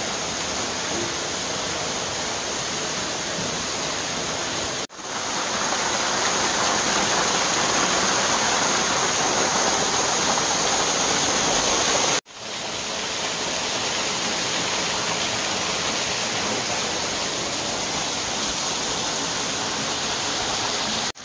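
Steady rushing of a waterfall pouring over a rock ledge into a pool, running heavy after flooding rains. The sound drops out for an instant twice.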